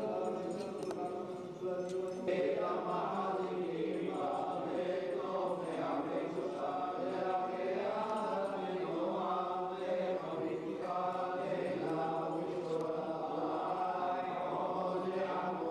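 A synagogue congregation chanting a prayer together, many voices at once in a steady sung chant. It grows a little louder about two seconds in.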